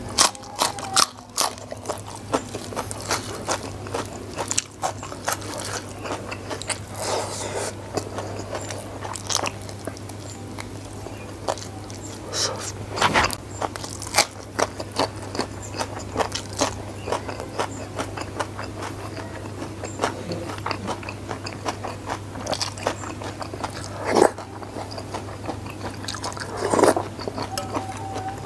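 Close-miked biting, crunching and chewing of a hand-eaten meal of raw vegetables and fried food: a steady run of wet crunches and mouth clicks, with a few louder bites.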